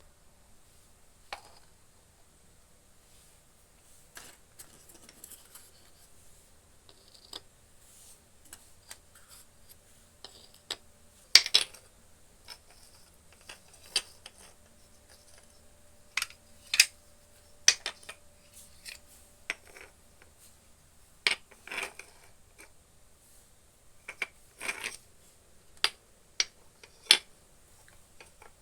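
Small pieces of a miniature toy cooking set being handled and set down: scattered sharp clicks and clacks at irregular intervals, with a few louder clacks from about halfway on.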